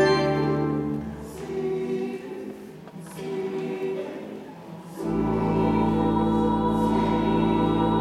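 Mixed choir singing a sacred anthem with organ. The held organ chord and its deep bass fall away about a second in, the choir goes on softly, and about five seconds in the organ comes back in loud with a deep bass under the voices.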